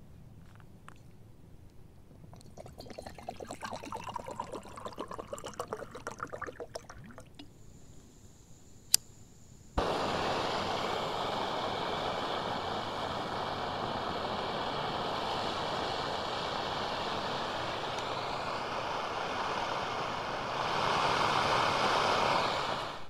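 Water poured into a steel mug, its pitch rising as it fills; then a sharp click and a screw-on canister gas stove lights suddenly and burns with a steady hiss and a faint whistle, turned up louder near the end before it cuts off.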